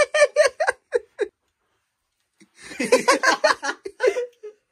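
Laughter: a person laughing in rapid repeated bursts, in two spells about a second apart.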